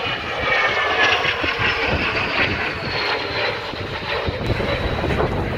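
CASA C-101 Aviojet display jets passing, steady jet engine noise with a thin high whine that slowly falls in pitch.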